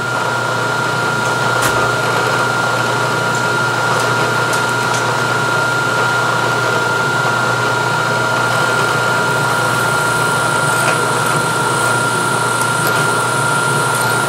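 Milling machine spindle running steadily with a high whine while a letter F drill cuts a 5/16-18 tap hole in steel.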